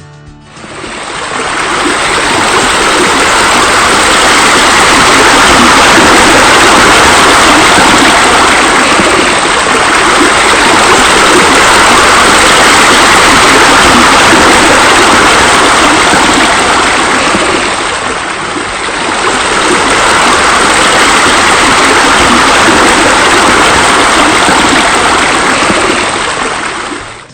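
Loud, steady rush of water pouring from a swimming-pool waterfall. It fades in, dips briefly about two-thirds of the way through, and fades out at the end.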